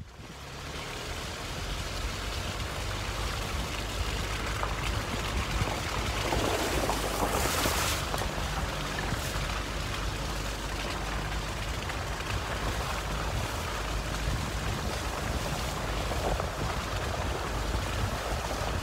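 Pickup truck driving along a rough farm lane, heard from inside the cab: steady engine and tyre rumble with a hissing rush of noise, which swells briefly about seven seconds in.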